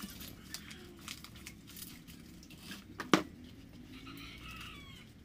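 Hands working potting soil in a pot, with scattered small clicks and rustles and one sharp knock about three seconds in.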